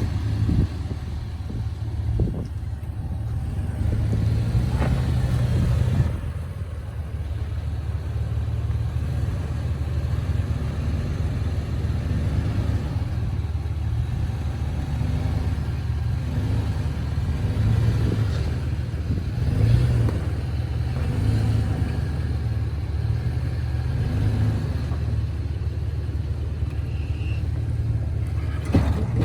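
Off-road 4x4's engine running steadily at low revs while crawling over the trail, with a few brief knocks in the first few seconds.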